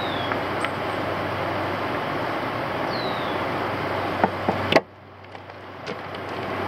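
Steady rushing background noise with a faint hum and a short high falling chirp about three seconds in. A few sharp clicks come about four seconds in, then the noise drops away suddenly and slowly builds back up.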